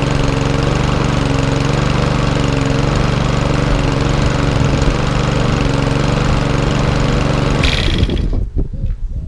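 Powerg lawnmower's four-stroke petrol engine running at a steady speed, no longer hunting after its carburettor was cleaned. About eight seconds in, the engine sound cuts off suddenly, leaving wind rumbling on the microphone.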